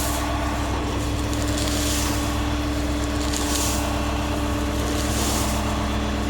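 Self-propelled swather's engine running steadily while stopped, with a few brief rustles as damp crop is pulled out of the plugged cutter knife guards.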